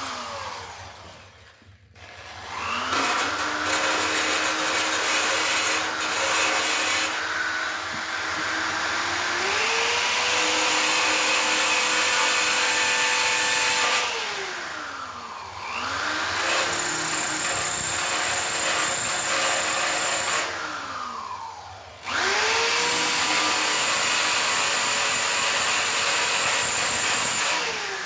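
High-speed rotary grinding tool with a grinding tip smoothing weld bumps on a steel bike frame. The motor spins up with a rising whine and runs loud with a grinding hiss, steps up in speed partway through the first run, winds down, and is started twice more, each run ending in a falling whine.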